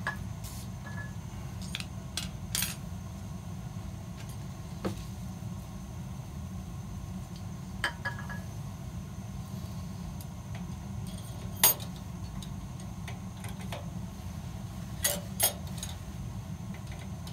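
Water dripping irregularly from a boiler drain valve's spout into a plastic bucket of water: about ten sharp plinks a second or more apart, some ringing briefly, over a steady low hum.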